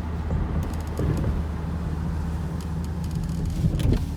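In-cabin drone of a 2006 Volvo XC90's 2.5-litre turbocharged five-cylinder and road noise while driving: a steady low hum, with a few light clicks around the middle and near the end.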